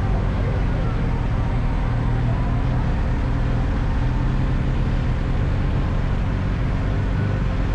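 Steady low rumble of a car on the road, engine and road noise running evenly without any sudden events.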